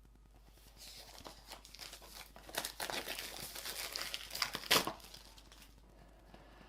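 Packaging being torn and crinkled as a new phone's box is opened: about five seconds of rustling and crackling, with the sharpest, loudest rip a little before the end.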